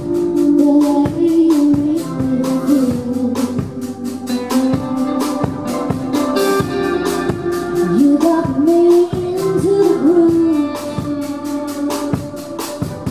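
Live band playing a song: a woman sings the lead over electric guitar, bass guitar and a steady drum beat.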